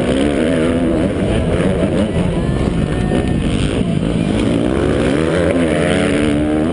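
Motocross bike engine revving hard, its pitch climbing and dropping again and again as the throttle is worked through the track's turns and jumps.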